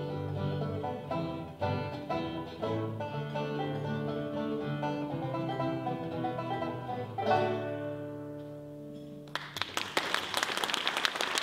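Banjo and acoustic guitar play the last bars of a tune and strike a final chord that rings out for about two seconds. Then an audience breaks into applause near the end.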